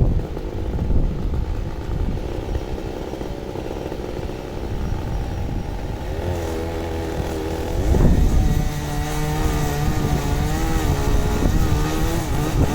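A small engine running, with low rumbling noise over it. A steadier engine tone comes in about six seconds in and shifts in pitch about two seconds later.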